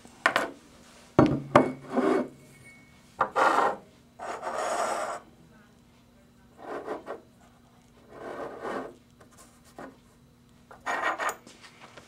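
Metal wheel-hub parts and a tapered roller bearing being handled, slid and set down on a wooden tabletop. There are sharp knocks in the first couple of seconds, then short scraping and rubbing noises every second or two.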